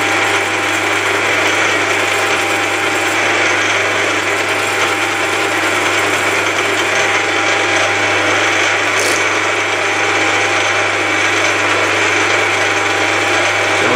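Milling machine running steadily, drilling a 4.2 mm tap hole for an M5 thread in a steel bar, with a constant hum and a thin steady tone over the noise of the machine.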